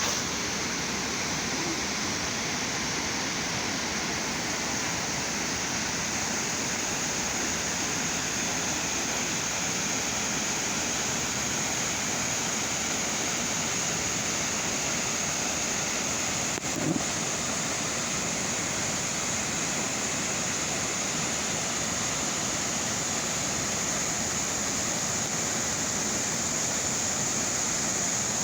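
Waterfall pouring steadily, a constant rush of falling water. There is a single brief knock about two-thirds of the way through.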